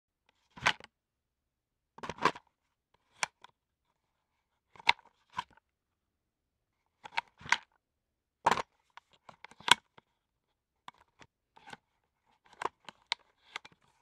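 Safariland military leg holster for a Beretta M9 being handled: a dozen or so short, sharp clicks and snaps, singly and in quick pairs or clusters, with silence between them.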